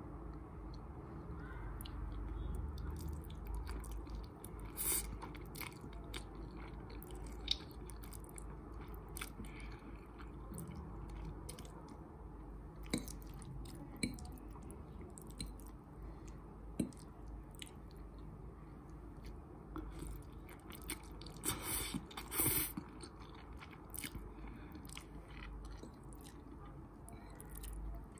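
Close-miked chewing and biting of soft noodles, with many small wet mouth clicks. A few louder, sharper bites come in a cluster about three-quarters of the way through.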